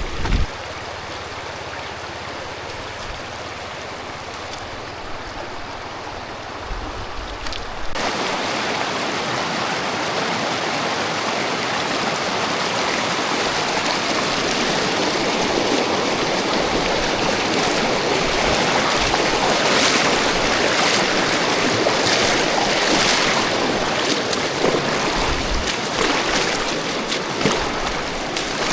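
Rushing water of a mountain stream, a steady noise that jumps louder about eight seconds in and then holds.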